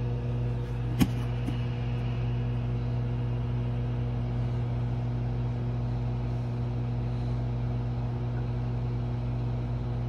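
Microwave oven running with a steady electrical hum while it boils a bowl of water. One sharp click about a second in.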